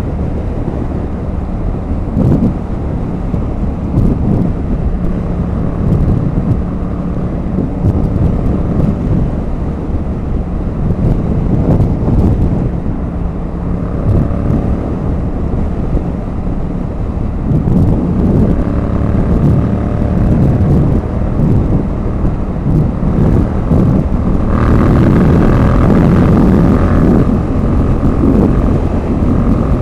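Motorcycle engine running at motorway speed under heavy wind buffeting on the microphone, its pitch climbing a little midway as the bike accelerates. Near the end a louder rush of noise lasts a couple of seconds.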